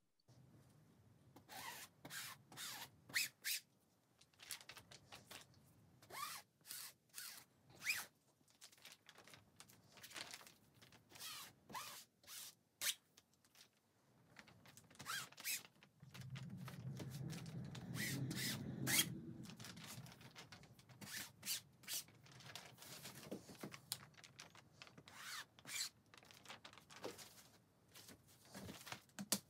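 Faint, scattered scrapes and light knocks of hand work at a table: printing with a Thermofax mini silk screen on fabric. A low rumble runs for a few seconds in the middle.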